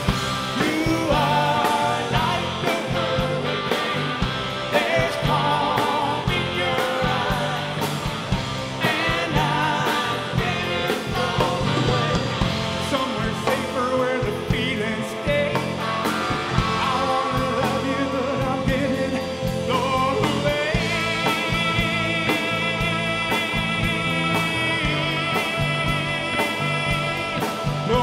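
Live rock band playing: distorted electric guitars over drums, with a man singing. About two-thirds of the way through, long held high notes with a wavering vibrato come in over the band.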